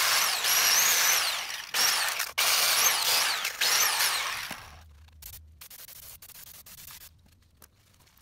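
Corded angle grinder fitted with a wire wheel, scrubbing old gasket material off a steel axle hub flange. Its high whine sags and recovers in pitch as the wheel is pressed into the metal, with two brief breaks. It stops about four and a half seconds in, leaving faint rubbing and handling sounds as the flange is wiped.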